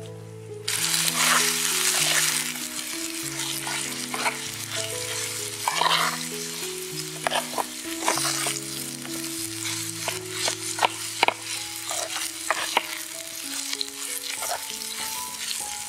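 Chicken, onion and chillies sizzling in a small hot frying pan while being stirred, a small metal spoon clicking and scraping against the pan. The sizzling starts abruptly about a second in. Soft background music of slow single notes plays underneath.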